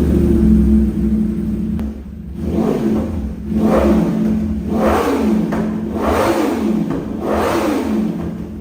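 Sport bike's inline-four engine idling, then blipped through about five quick revs, roughly one a second, each rising sharply and falling back to idle.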